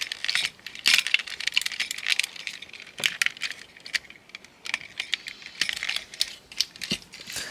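Hard plastic parts of a transforming robot figure clicking, rattling and scraping as they are handled and pegged together, in many irregular small clicks.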